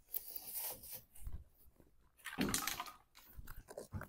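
Knocks, scuffs and clatter of a person climbing up into a pickup truck's bed, with one louder bump about two and a half seconds in.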